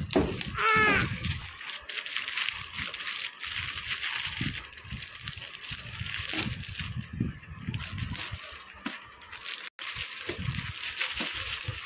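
Shiny plastic gift wrap crinkling and rustling as a child's hands tear it open off a box, in a dense, irregular crackle.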